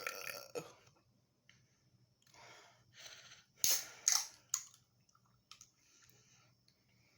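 A man lets out a loud burp at the start, brought on by chugging carbonated Red Bull. A few seconds later come softer noisy sounds and then sharp clicks and crackles, the loudest twice about half a second apart.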